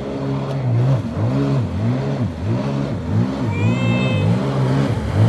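Sea-Doo Spark Trixx personal watercraft's three-cylinder Rotax engine revved up and down over and over, in quick throttle pulses a little under twice a second.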